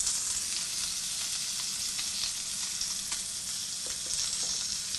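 Salmon skewers searing on a hot ridged grill pan set to high: a steady sizzle with small scattered crackles.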